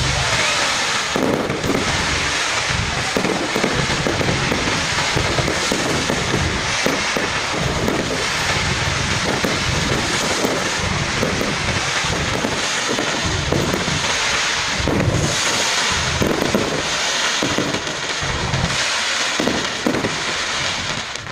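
Fireworks display going off: a rapid, continuous run of bangs and low thumps over a constant crackling hiss, starting suddenly and cutting off suddenly.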